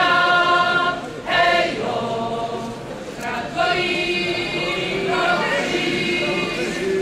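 Many voices of a protest crowd chanting or singing together in unison, holding long notes with short breaks between them.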